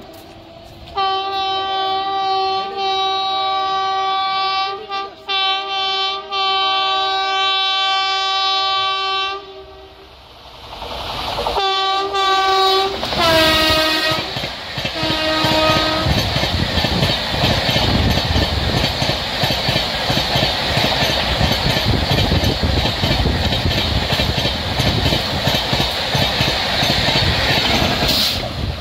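WAP-5 electric locomotive of a high-speed Amrit Bharat Express giving long horn blasts as it approaches. Shorter blasts follow, dropping lower in pitch as it passes, and then comes the loud, steady rush of the coaches' wheels and air running by at about 130 km/h.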